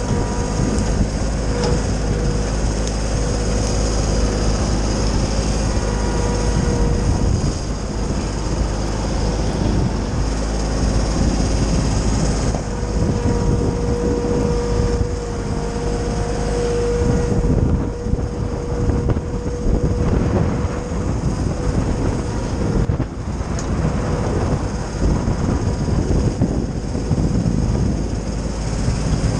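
Kioti sub-compact tractor's diesel engine running steadily, driving a PTO-powered Titan wood chipper at speed. Irregular rough crunching and grinding comes and goes as pine branches are fed through the chipper, thickest in the second half.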